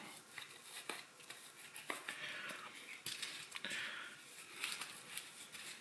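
Faint handling noises of a pleated cabin air filter and its plastic holder frame: a few light clicks and soft rustling as the filter is pressed and spread into the frame.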